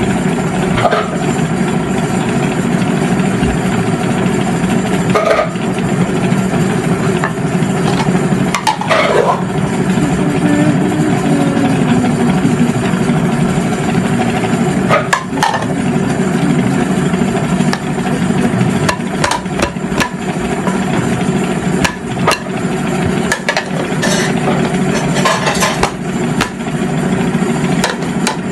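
Steady hum of an electric pedestal fan running close by, with scattered light knocks and clinks of utensils being handled and cleaned.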